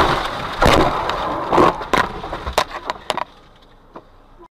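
A car tumbling after a collision: a run of heavy crashing impacts about a second apart as its body strikes the road again and again, dying away after about three seconds; the sound cuts off near the end.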